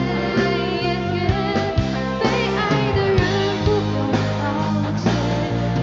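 Live band playing a pop ballad with regular drum hits, steady bass and guitar, and a wavering lead melody line.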